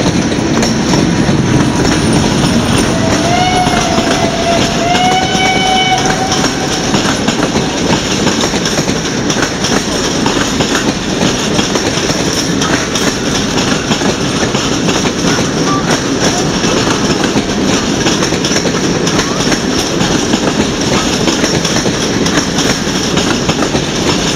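Steam-hauled train of vintage coaches rolling out over station points: a steady rumble with wheel clatter throughout. A train whistle sounds twice, briefly, about three to six seconds in, the second note slightly higher.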